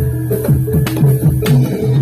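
Gamelan music for a jathilan dance: a fast, even beat of low drum strokes, about four a second, under held metallic pitched tones.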